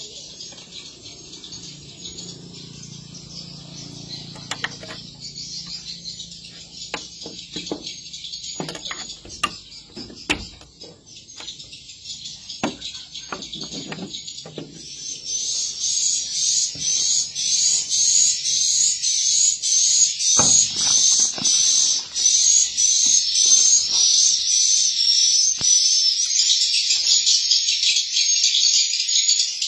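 Swiftlet calls: dense, high twittering, faint at first and much louder from about halfway through, where one chirp phrase repeats at an even pace. A few knocks and handling sounds in the first half.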